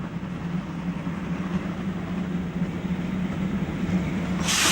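Steam locomotive running with a steady low hum that slowly grows louder, then near the end a loud burst of steam exhaust hissing from the chimney.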